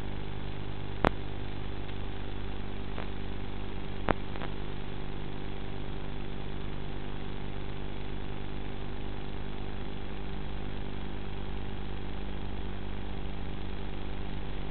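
Brushless electric motor and propeller of an FPV RC plane running at a steady throttle, a constant buzzing hum picked up by the onboard camera's microphone, with two short clicks about one and four seconds in.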